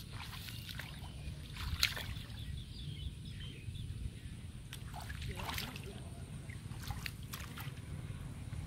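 Shallow muddy water sloshing and splashing around someone wading, with scattered short snaps and rustles as green plants are grabbed and pulled from the mud, over a steady low rumble.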